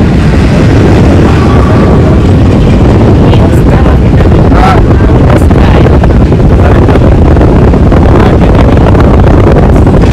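Strong wind buffeting the microphone: a loud, steady rumble that drowns out nearly everything else.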